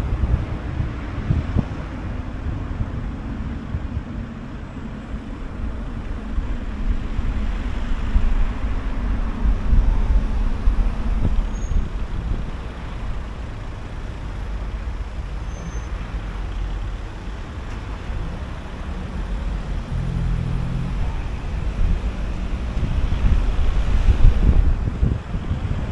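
Car driving through town streets: a steady low rumble of engine and tyre noise that swells louder near the end.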